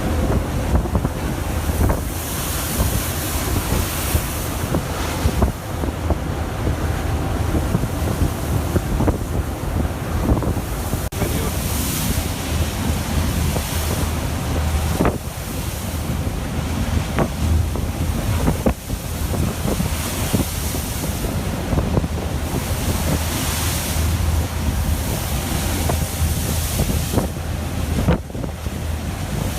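Strong wind blasting the microphone over a rough sea, with waves surging and breaking and a few sharp knocks along the way.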